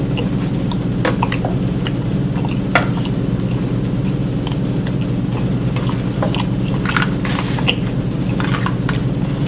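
A fork scraping and clicking in an aluminium foil pan of food, with chewing, over a steady low hum. There is a short crinkly rustle about seven seconds in.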